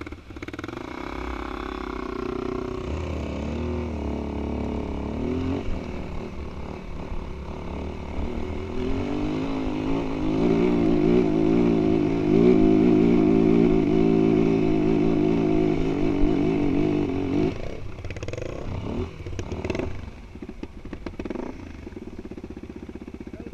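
2017 Yamaha WR250F's single-cylinder four-stroke engine pulling the dirt bike up a steep slope: revs climb in the first few seconds, then it runs loud and steady under throttle. About three-quarters of the way through the throttle closes, a couple of short blips follow, and it settles to a low idle as the bike stops.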